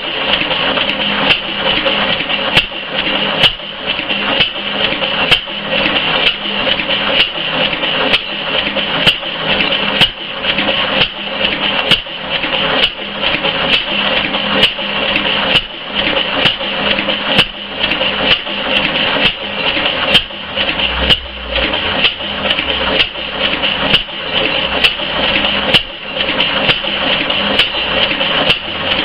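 Friend Mfg Co stationary gas engine running steadily, a rhythmic mechanical clatter with sharp regular knocks and a louder beat a little over a second apart.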